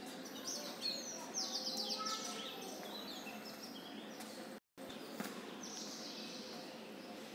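Faint bird chirping: a quick run of short, high, falling chirps early on and a fainter bout later, over a steady low background hiss. All sound cuts out for a split second about halfway through.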